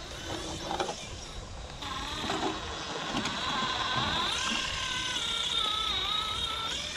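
Electric motor and gearbox whine of an RC scale crawler, rising and falling with the throttle as it climbs over rocks, with a few knocks of the chassis and tyres on rock in the first couple of seconds.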